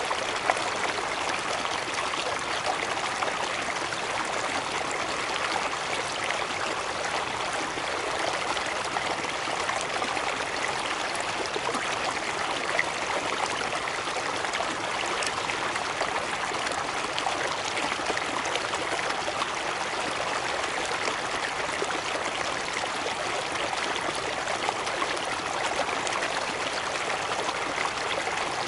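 Cascading water: a steady, even rush with little low rumble that never changes.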